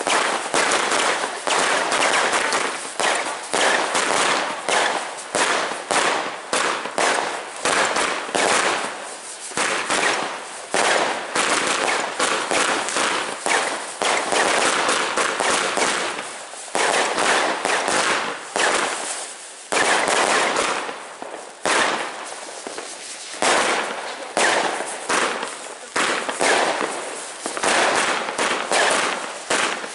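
Two Thor Frigg firework cakes firing at once: a rapid, almost unbroken run of shots and pops from spinner and bouquet effects, easing briefly about two-thirds of the way through.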